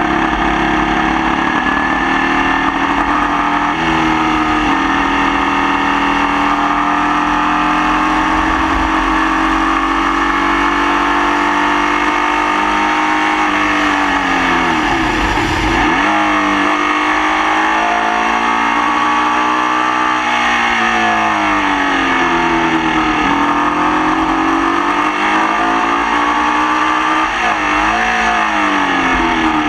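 Formula Vee race car's air-cooled Volkswagen flat-four engine under race load, its revs climbing and dropping through gear changes and corners, with a sharp fall in revs about halfway through. The engine is running with the misfire it had all race.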